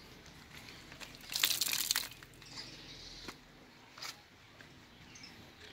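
Newspaper crinkling and rustling under hands pressing a sponge onto a freshly couched sheet of wet handmade paper to blot off the excess water. The crinkling is loudest in a burst about a second and a half in, with a few short taps and rustles after.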